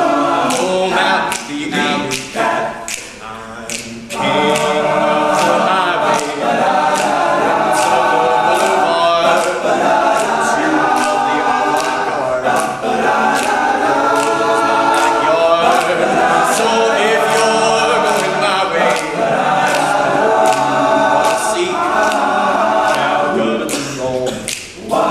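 All-male a cappella group singing a wordless jazzy passage in close harmony over a steady beat of finger snaps. The voices thin out briefly, and the full group comes back in about four seconds in.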